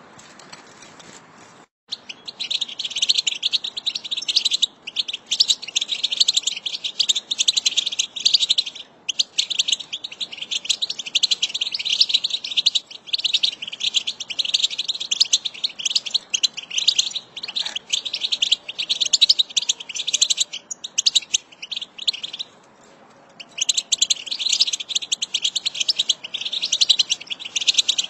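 A flock of European goldfinches twittering together, a dense, continuous stream of rapid high calls that starts about two seconds in, with one short break a few seconds before the end.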